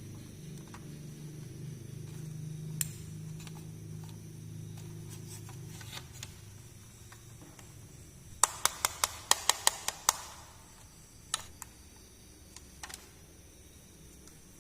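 Small plastic miniature toy pieces being handled: scattered light clicks and taps, with a quick run of about eight sharp clicks a little past the middle. A low hum fades out about halfway through.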